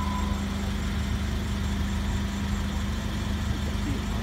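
Forklift engine idling steadily, a continuous low hum.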